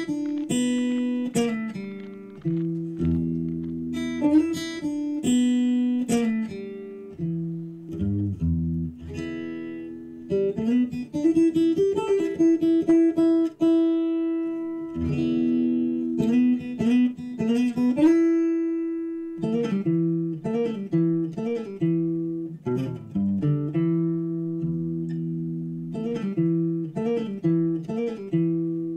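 Background music: acoustic guitar playing a melody of plucked notes.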